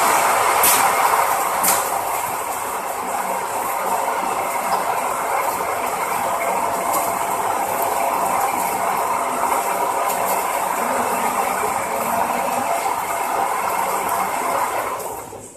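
Tyre stretch wrapping machine running: its rotating ring carries the film roll round the tyre with a steady mechanical clatter. There are a couple of sharp clicks in the first two seconds, and the sound cuts off near the end.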